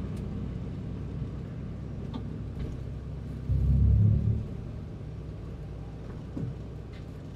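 In-car sound of a 1997 Toyota Paseo race car's four-cylinder engine running at low speed, a steady low rumble. About halfway through, a louder low surge lasts about a second.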